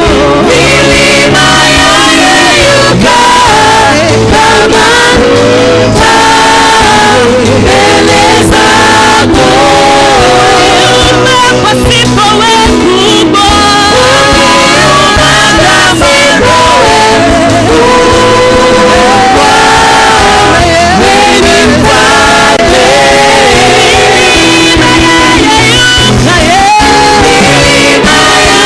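Gospel worship music: singers with a band, a steady beat under the melody.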